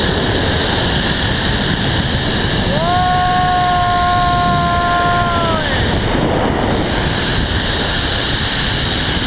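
Loud steady rush of wind and the pulley running along the cable during a zipline ride. From about three seconds in, a person gives one long held shout, about three seconds, that swoops up at the start and drops away at the end.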